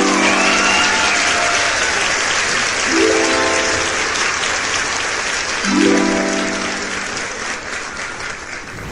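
Background music with held chords that change about every three seconds, over a steady dense hiss.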